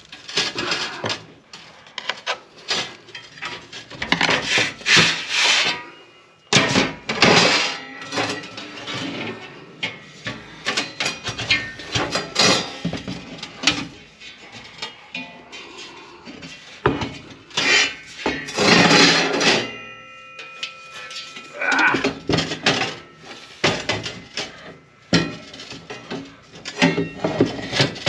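Thick black-coated stainless steel fire pit panels clanking, scraping and sliding against one another and the wooden table as they are slotted together, with irregular knocks and some clanks ringing briefly.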